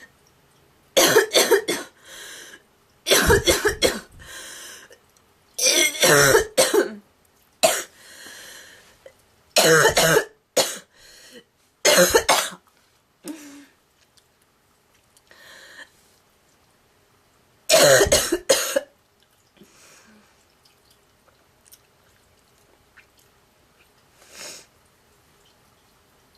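A girl's goose-like honking cough, coming in fits of several quick, harsh coughs with breaths between. There are about half a dozen loud fits in the first 19 seconds, then only a few faint ones.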